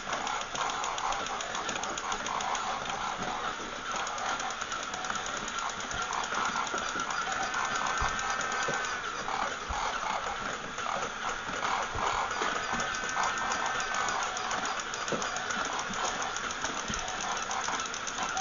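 Battery-operated walking toy animal running: its small electric motor and gears whir with a rapid clicking, and twice a higher held tone sounds for about two seconds.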